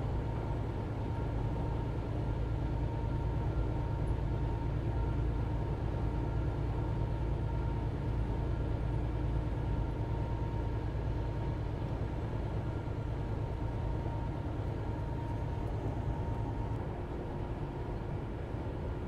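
Steady low drone of a semi truck's diesel engine and tyre and road noise, heard inside the cab at highway cruising speed.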